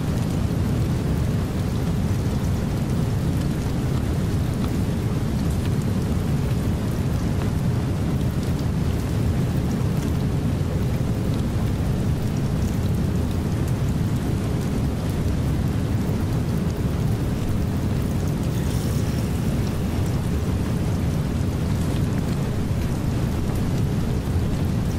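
Steady rain-and-thunderstorm ambience used as a masking track: a deep, even rumble with a hiss of rain above it, unchanging in level.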